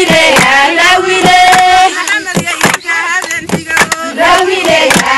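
A group of women singing together and clapping hands in a steady rhythm, about two claps a second.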